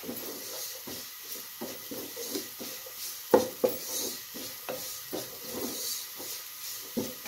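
Wooden spoon stirring and scraping roti crumbs roasting in ghee around a non-stick pot: a run of short scrapes, with a few sharp knocks of the spoon against the pot, the loudest about three and a half seconds in and again near the end.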